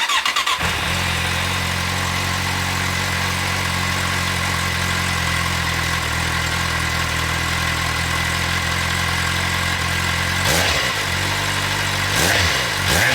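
Kawasaki Z750's inline-four motorcycle engine starting up, catching almost at once, then idling steadily. About ten seconds in it is revved briefly, twice.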